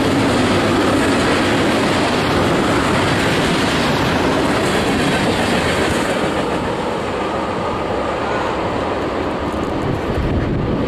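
Freight train of tank cars rolling past: steady wheel and rail noise, a little duller after about six seconds in.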